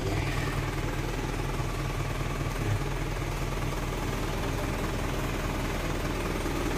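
Isuzu 4HG1 four-cylinder diesel engine idling steadily, heard from inside the truck's cab.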